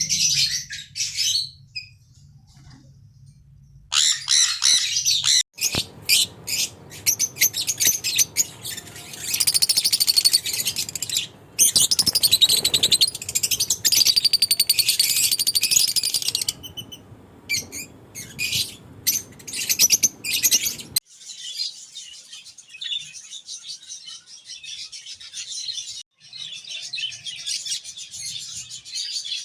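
A flock of budgerigars chirping and warbling continuously in a rapid, broken chatter. An even low background rumble runs under it through the middle and cuts off abruptly about two-thirds of the way through.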